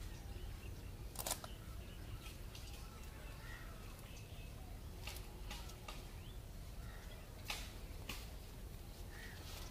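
Handheld camera handling noise: a steady low rumble with a few sharp clicks scattered through, and faint bird chirps in the background.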